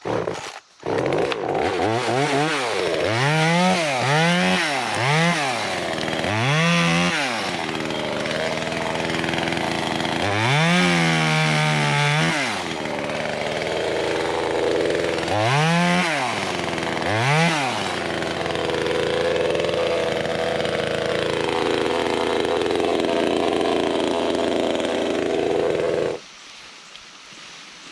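Small top-handle two-stroke chainsaw revving up and dropping back again and again, then running more steadily, before it cuts off abruptly near the end.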